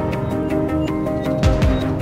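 Background music with sustained notes and a deep drum hit about one and a half seconds in.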